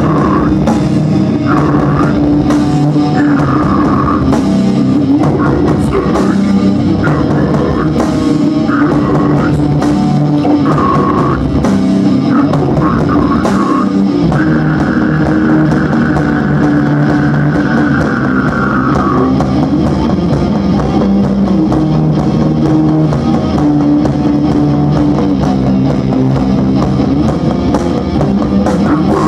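A live deathcore metal band playing its intro: heavily distorted electric guitars over a drum kit, loud and steady. A long high note is held for about five seconds midway through.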